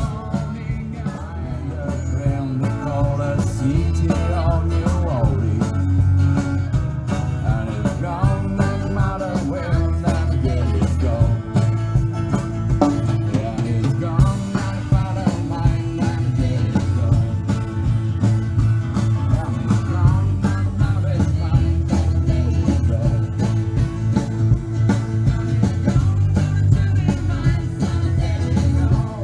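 Live country band playing an up-tempo song: guitar over a steady drum beat.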